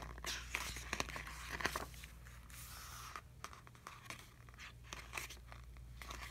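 Pages of a hardcover album photo book being turned and handled: paper rustling and crinkling with small clicks, busiest in the first two seconds, with a longer swish of a page about three seconds in. A low steady hum runs underneath.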